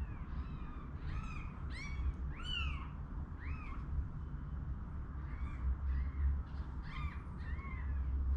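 Newborn kittens mewing: many short, high-pitched cries, each rising and then falling, coming in two bunches over a low steady hum.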